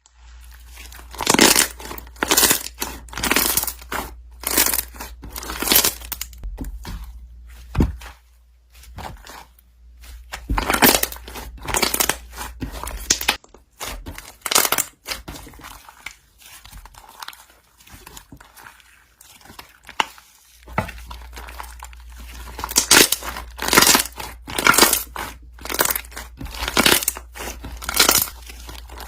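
Repeated bursts of crinkling and rustling, coming irregularly about once a second, with a quieter spell in the middle, over a steady low hum.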